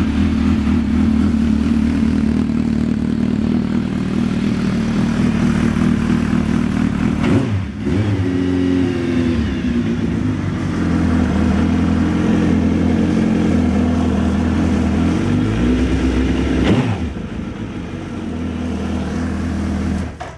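Motorcycle engine running steadily, blipped briefly about seven seconds in and again near the end: a test run after a new chain and sprockets are fitted.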